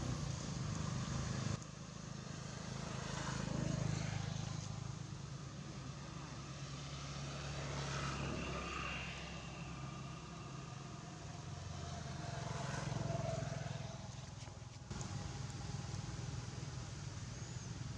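Steady low engine hum of motor traffic on the road, swelling twice as vehicles pass, with sudden level jumps where the sound track is cut.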